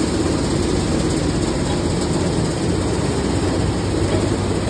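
Oat peeling (dehulling) machinery running with a steady, loud mechanical din: a low hum under an even hiss, without breaks.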